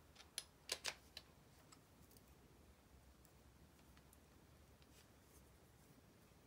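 A few small sharp clicks and taps in the first second or so as small parts and a handheld screwdriver are picked up and handled, then near silence with only a faint tick now and then.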